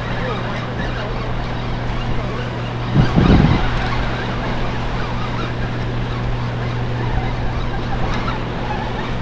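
A steady low motor hum over a wash of noise, with a brief louder rumble about three seconds in.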